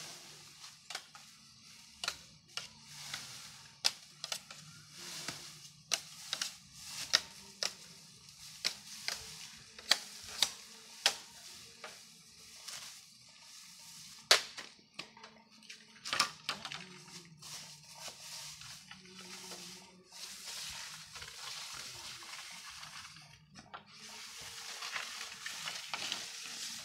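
Thin bamboo poles and dry brush being pulled and handled, giving irregular sharp cracks and knocks, a few of them much louder, then a rustling scrape near the end as the poles are dragged over dry leaves.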